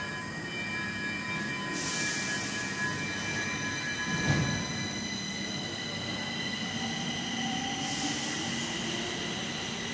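Stockholm metro train at the platform: a steady high-pitched whine over a low rumble, with a thump about four seconds in and two bursts of hiss, near the start and near the end.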